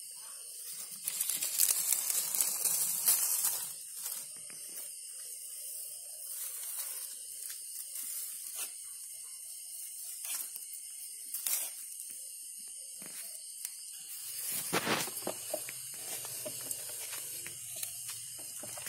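Grass and dry stalks rustling and crackling as someone pushes through undergrowth, with two louder stretches of rustling, one early on and one near the end, and scattered clicks between. A steady high trill of insects runs underneath.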